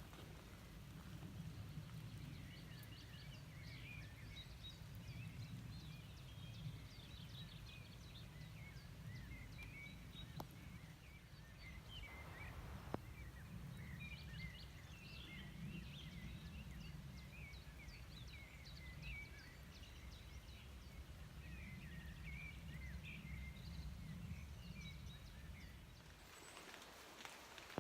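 Songbirds singing and chirping after rain, many short, faint calls overlapping, over a steady low rumble that drops away near the end.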